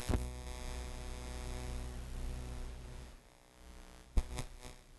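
Electrical hum and buzz on a cheap wireless clip-on microphone. It starts with a sharp knock, runs steadily for about three seconds and then fades. A few sharp clicks follow about four seconds in.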